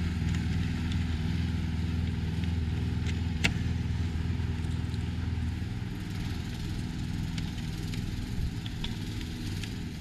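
Petrol lawn mower engine running steadily in the background, a little fainter in the second half. A sharp click about three and a half seconds in, with a few lighter clicks, as a greenhouse frame profile is fitted by hand.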